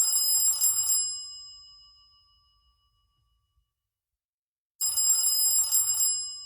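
Android Ice Cream Sandwich ringtone in the style of a telephone bell: a ring of about a second that fades out, a gap of silence, then the same ring again near the end.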